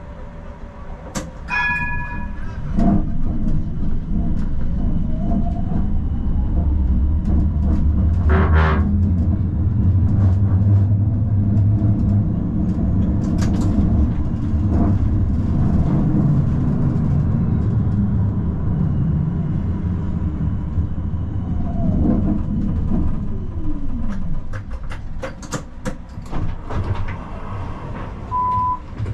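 Tram running along the track: a steady low rumble of wheels on rails that grows louder about three seconds in. About two-thirds through, a motor whine drops in pitch as the tram slows, and there is a short beep near the end.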